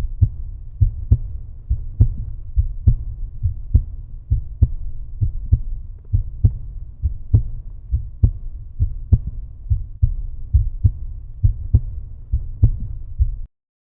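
Bass-heavy outro music beat: low, deep thumps about twice a second over a droning bass, cutting off suddenly near the end.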